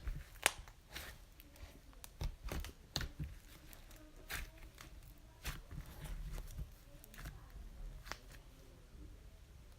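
Clay slime being squished and spread by hand for ASMR, giving irregular soft clicks and crackles.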